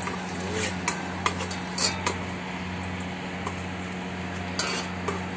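A utensil stirring garlic in the metal inner pot of an electric rice cooker, clinking against the pot a handful of times, over a steady low hum.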